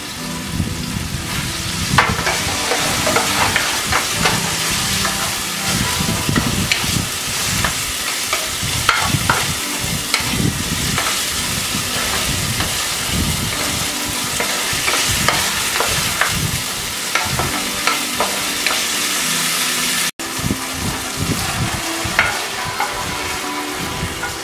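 Chicken strips sizzling in hot oil in a nonstick pan, a steady frying hiss, while a wooden spatula stirs them with frequent short scrapes and taps against the pan.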